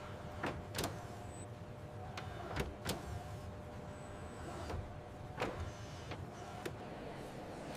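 Steady mechanical hum with a few sharp clicks and knocks at irregular moments, about six in all.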